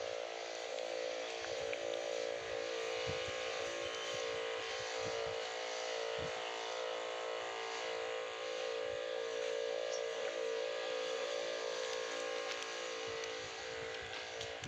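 Steady mechanical hum of a small motor, an even unchanging drone, with a few soft low bumps.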